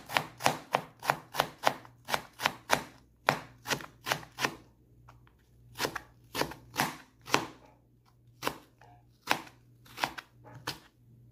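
Chef's knife slicing daikon radish into thin strips, each cut knocking on a plastic cutting board. The cuts come quickly, about three a second, for the first four seconds, then slower with two short pauses.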